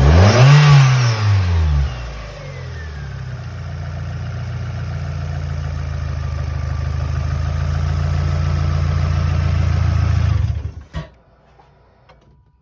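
Mazda Miata NB's four-cylinder engine blipped once, settling into a steady idle, then shutting off about eleven seconds in, with a single sharp click as it stops.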